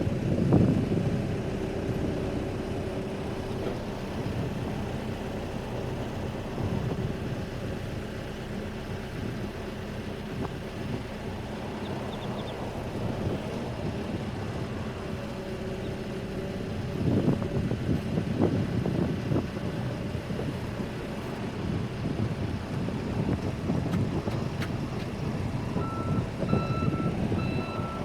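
Case 580N backhoe loader's diesel engine running, its load rising and falling. Near the end its reversing alarm starts beeping at a steady rate.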